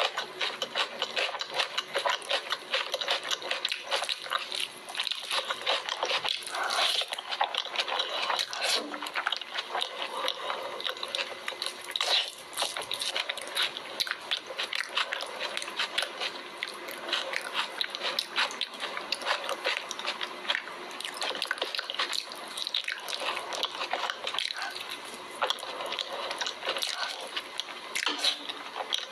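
Close-miked eating sounds: a dense, continuous stream of wet chewing clicks and mouth smacks.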